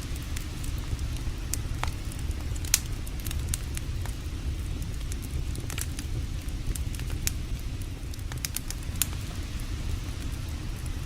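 Campfire crackling, with scattered sharp pops, two of them louder about three seconds in and near nine seconds, over a steady low rush of the creek.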